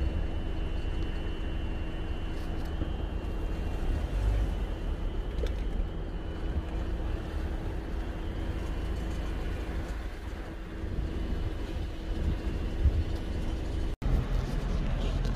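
Car driving: steady road and engine rumble, with a faint constant hum. The sound cuts out for an instant near the end.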